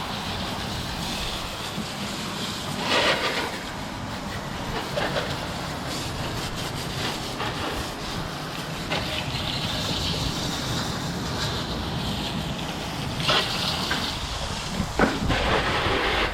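A water hose spraying steadily onto an Arrma Outcast RC car to wash the mud off, with a few brief louder bursts where the spray hits.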